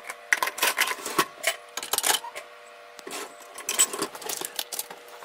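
Dishes and a pot being shifted and set into dishwasher racks: a quick, irregular run of clinks and knocks of crockery and metal.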